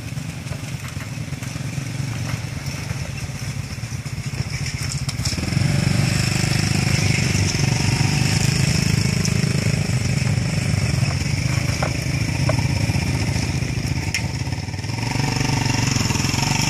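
Small motorcycle engines running close by, the hum growing louder about five seconds in and again near the end, with a few sharp clicks.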